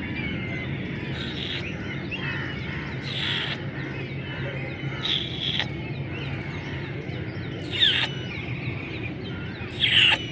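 Many birds chirping and twittering over a steady low background hum, with five short, louder harsh bursts; the two loudest come near the end.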